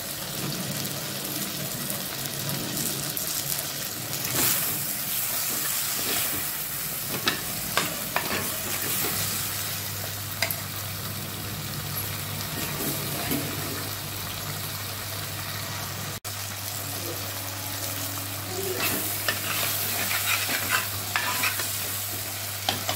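Drumstick pieces, onions and tomato sizzling in oil in a clay pot while a steel ladle stirs them, scraping and knocking against the pot now and then.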